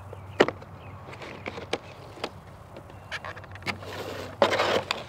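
Hands handling a tire pressure monitor kit's plastic tray and cardboard packaging: scattered light clicks and taps, then a short rustling scrape of cardboard near the end.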